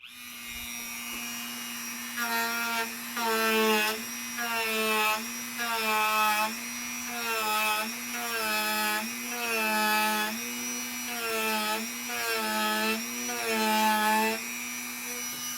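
Closing music: a steady held drone with a repeating run of gliding pitched notes, about one a second, coming in about two seconds in.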